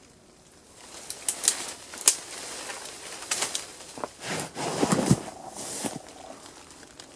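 Branches and twigs rustling, cracking and snapping, and rubber boots scraping on bark, as a man climbs a leaning wind-thrown tree trunk. A louder, heavier scrape and thump comes about four to five seconds in as his body slides down along the trunk.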